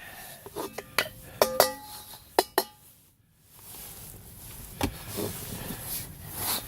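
Scrap metal being handled: a run of sharp clinks and clanks in the first couple of seconds, some ringing briefly. After a short lull comes a dull knock near five seconds, with rustling.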